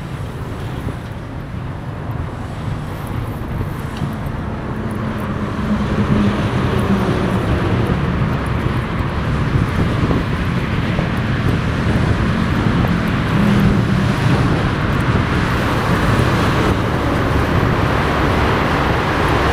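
Street traffic heard from a bicycle in city traffic: vehicle engines and road noise, growing louder about six seconds in, with a steady low engine hum through most of the first two-thirds.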